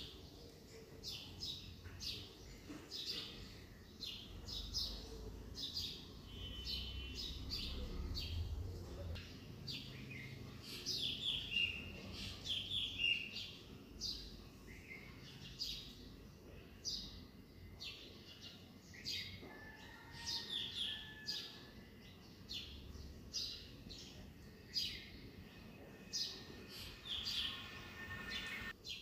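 Birds chirping: many short, quick calls and down-sweeping notes one after another, over a low background rumble that is strongest in the first half.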